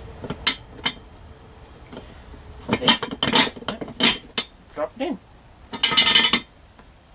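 TTI axle stand being worked by hand, its ratchet handle lifted and the column moved up and down: a run of metal clicks and clanks, with a louder rattling clank about six seconds in.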